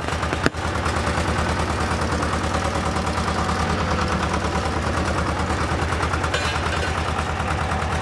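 Road roller's engine running with a rapid, steady pulsing, and a single sharp crack about half a second in as a disposable plastic lighter bursts under the steel drum.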